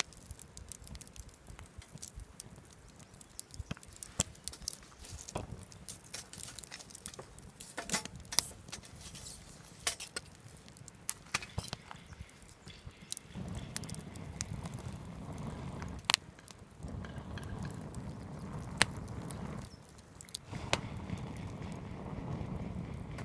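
Wood fire crackling, with scattered sharp pops. After about halfway, stretches of steadier noise come in and drop out a few times.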